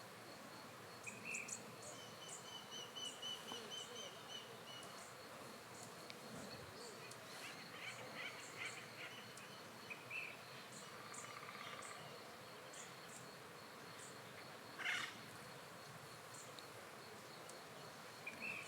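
Faint forest ambience: scattered short bird calls, a high rattling trill about two to four seconds in, and a louder call near the end, over a faint steady high-pitched tone.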